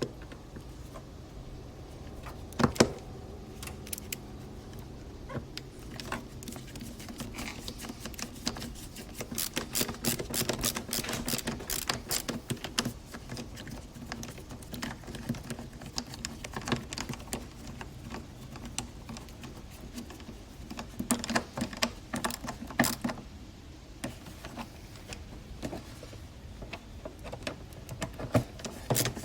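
Irregular clicking, rattling and a few sharper knocks from a screwdriver and Phillips screws working against a plastic air cleaner cover as it is refitted.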